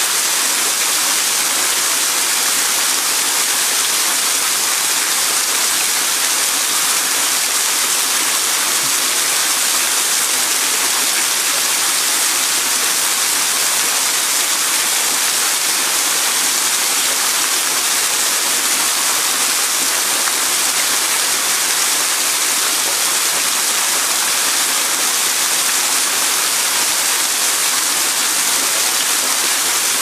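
Waterfall cascading and splashing down a rock face: a steady, unbroken hiss of falling water, brightest in the high pitches.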